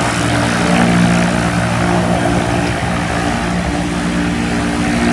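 Single-engine turboprop jump plane, a Cessna Caravan, running on the ground: a loud, steady engine and propeller drone with a low hum.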